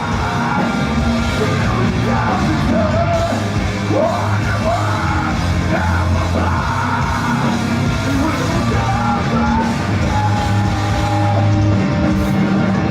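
A hardcore band playing loud and fast live, with a singer yelling over the guitars and drums.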